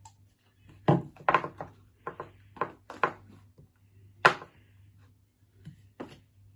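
Homemade PVA-glue slime being kneaded and slapped by hand: about ten short sticky smacks and squelches at an irregular pace, the loudest about four seconds in. The slime is still sticky, not yet fully set.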